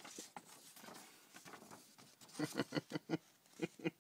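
Hands handling packaging and a paper note: soft rustling, then a quick run of light clicks and taps about two seconds in, and two more near the end.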